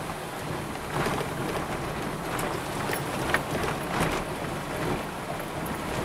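Car interior noise while driving slowly: a steady low engine and tyre rumble, with several brief knocks and rattles between about one and four seconds in as the car rides over a cracked, patched road surface.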